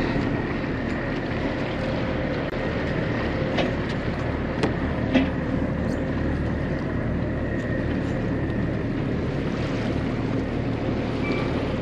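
1999 Carver 504 motor yacht under way on calm water: a steady engine drone with a faint whine and water washing along the hull, with a few light taps around the middle.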